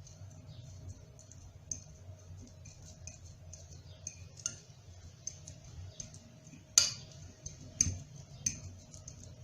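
A utensil clicking and tapping against a bowl while steamed garlic cloves are mashed, with a few sharper knocks near the end.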